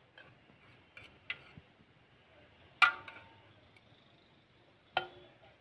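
Metal serving spoon knocking against a large aluminium biryani pot while rice is scooped out: a few light clicks, then two sharp, ringing clanks about two seconds apart.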